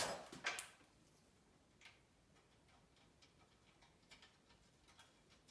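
Faint, scattered clicks and ticks of small metal hardware as a bolt and nut are fitted by hand into the steel frame of a DeWalt rolling table saw stand, with a couple of sharper clicks in the first half second.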